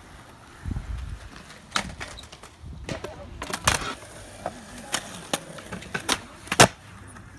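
Skateboard wheels rolling on concrete, with several sharp clacks of the board hitting the concrete. The loudest clack comes near the end.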